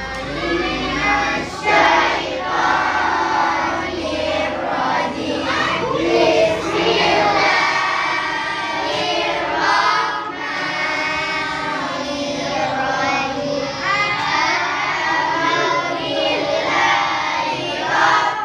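A class of schoolchildren chanting a prayer together in unison, in a continuous sing-song recitation.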